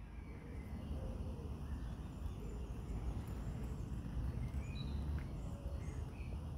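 Outdoor background: a low, steady rumble with a few faint, short bird chirps scattered through it.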